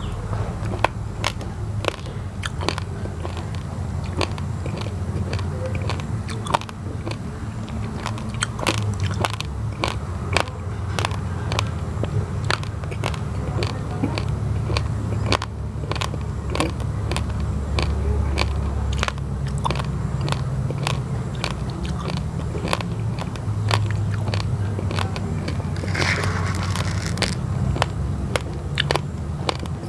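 Uncooked basmati and glutinous rice grains being chewed, a quick run of sharp, crisp crunches, over a steady low rumble.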